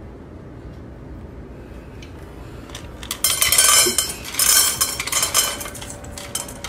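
Dry cat food clattering and clinking in the metal bowl of an automatic pet feeder, starting about three seconds in, with the bowl ringing.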